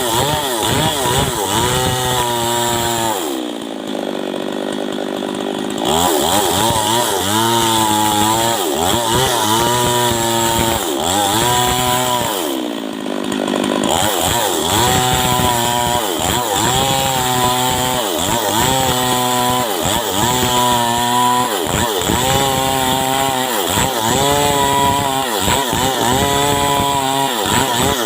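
Stihl MS 382 two-stroke chainsaw cutting wood, its engine speed sagging and picking up again and again as the chain bites. Twice it drops back to idle for a moment, about three seconds in and again around thirteen seconds.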